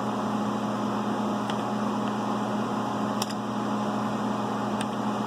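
Steady hum and fan noise of an idling Fadal CNC vertical milling machine with its spindle stopped. Three faint clicks sound at intervals, typical of buttons being pressed on the machine's control panel.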